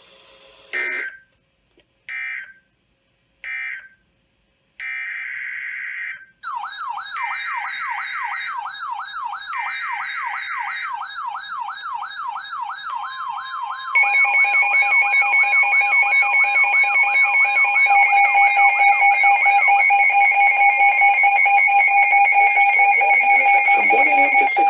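Emergency Alert System data tones from a NOAA Weather Radio broadcast. First come three short screechy end-of-message bursts, then three longer SAME header bursts announcing the next warning. About six seconds in, a fast-warbling siren alarm starts. Just over halfway through, a steady two-tone EAS attention signal joins it and the sound gets louder, until it cuts off near the end.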